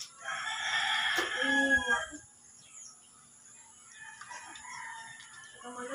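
A rooster crowing once; the crow lasts about two seconds.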